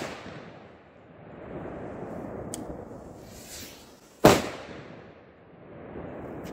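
A long rumbling echo trails off after a firecracker bang. About four seconds in, a second sharp, loud Megatresk Explo firecracker (Privatex, 3 g net explosive content, category P1) goes off, followed by its own long rumbling echo.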